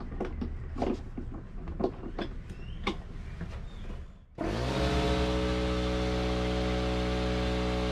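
Clicks and knocks as a portable electric air compressor's hose and fittings are handled. About four seconds in the compressor switches on: its motor spins up and then runs with a steady drone, pumping up an inflatable dinghy's tubes.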